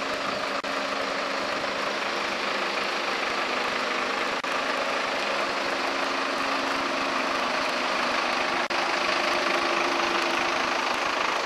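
Crane truck's engine running steadily, a continuous hum under a broad mechanical noise.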